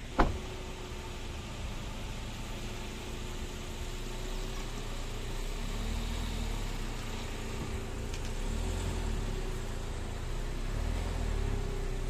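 A motor vehicle running, heard as a steady low engine and road rumble with faint engine tones that drift slowly. A single sharp click comes just after the start.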